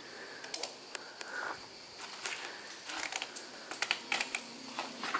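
Irregular light clicks and clinks, thickest about three to four and a half seconds in, from a climber's gear and hands and feet moving on an overhanging rock face.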